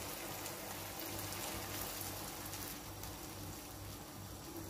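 Chickpea stew in tomato sauce simmering in a nonstick pan on a gas burner: a faint, steady bubbling crackle.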